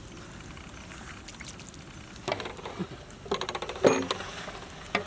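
Metal cooking utensils clattering and knocking against a large cooking pot in a few short bursts, the loudest a quick run of knocks a little past the middle.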